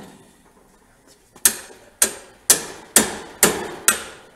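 Hammer striking a cut-off bolt held as a drift against a Honda CT70 front fork tube clamped in a vise, six sharp metallic blows about half a second apart starting about a second and a half in, knocking the fork's internal shock out of the tube.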